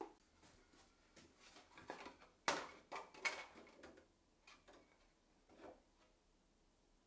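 Thin plastic sheets being handled and flexed: soft rustling with two sharp crackles about two and a half and three and a half seconds in, then a few fainter taps and rustles.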